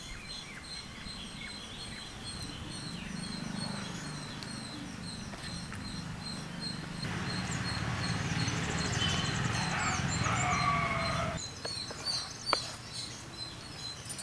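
Small birds chirping steadily over a low, wet squishing as chicken pieces are kneaded by hand in a yoghurt and spice marinade. The squishing grows louder for a few seconds in the middle and then stops abruptly.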